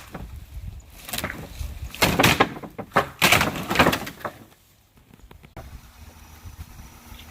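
Wooden fence boards being knocked and broken apart: a run of sharp cracks, bangs and scraping over the first four seconds or so, then a faint steady hum.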